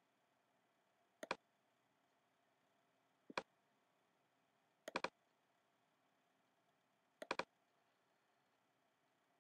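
Mouse button clicking four times, about every two seconds, each a quick pair of clicks, press and release, as taps are made on a simulated phone screen. Near silence between the clicks.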